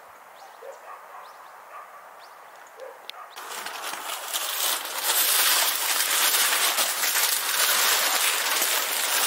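Black synthetic-fabric bumper curtain for a car-camping tent being unfolded and shaken out: a loud, crackly rustle that starts about three seconds in and grows louder, following a few quiet seconds.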